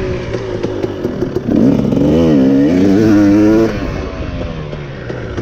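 Dirt bike engine under throttle while riding, its pitch rising and falling. It gets louder about a second and a half in for about two seconds, then drops back as the throttle is eased off.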